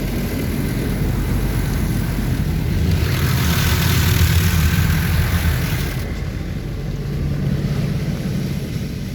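Rinse spray from an Oasis Typhoon automatic car wash hitting the car, heard from inside the cabin over a steady low rumble. The spray hiss is loudest from about three to six seconds in, as it passes over, then eases off.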